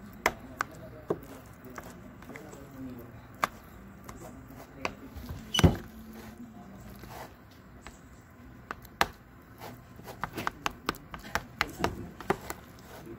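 Metal spoon clicking and scraping against a plastic container as it stirs chunks of avocado. Sharp clicks come at scattered moments, with one loud knock about halfway through and a quick run of clicks in the last few seconds.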